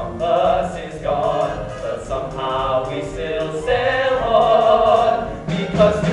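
Show tune sung live by a small group of voices in close harmony, with musical accompaniment.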